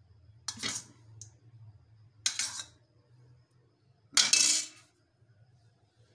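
A spoon clattering three times, about two seconds apart, the last the loudest, as spoonfuls of yogurt are tapped off onto chicken pieces in a bowl.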